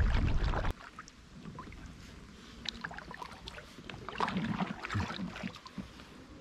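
Wind buffeting the microphone, which cuts off abruptly under a second in. After that come quiet small splashes and drips of water around a kayak gliding through duckweed toward the bank, with a few soft bumps near the middle.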